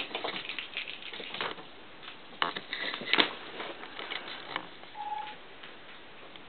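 A cat's paws and claws tapping and scrabbling on a hardwood floor as it bats a small toy ball about, with irregular clicks and short scrapes. The loudest knocks come about two and a half and three seconds in.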